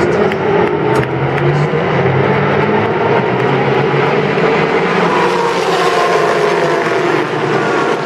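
A pack of GT race cars running at full throttle, many engines overlapping into one loud, continuous sound. Individual engine notes rise and fall as cars pass.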